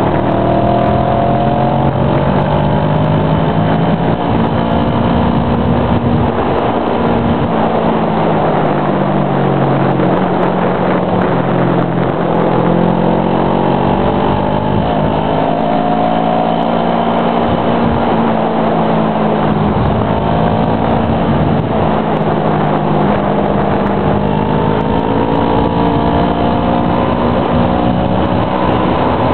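Motorcycle engine running under way, its pitch rising and falling several times as the bike speeds up and eases off, over a steady rush of wind and road noise.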